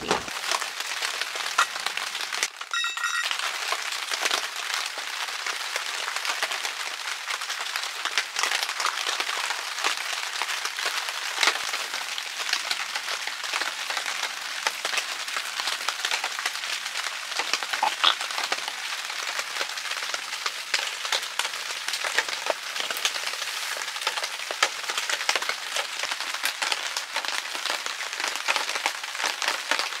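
Heavy rain falling on the tent: a steady hiss made of countless small drop ticks.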